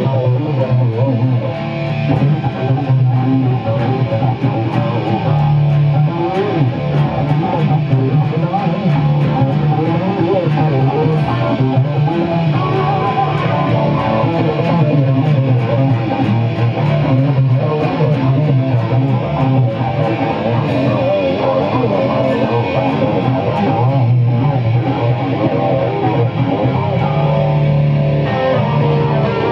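A Stratocaster-style electric guitar and an acoustic guitar playing together without a break, the acoustic strummed.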